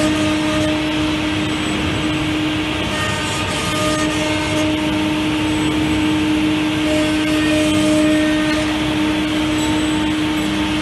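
Mergen CNC wood router running, its spindle giving a steady whine with overtones over a constant hiss.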